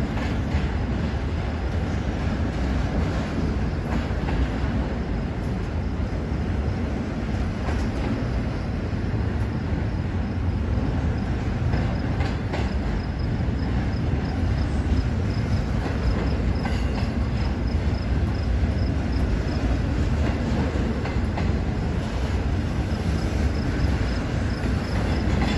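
Double-stack intermodal well cars of a freight train rolling past: a steady rumble of steel wheels on the rails, with occasional clicks and a faint high tone that comes and goes.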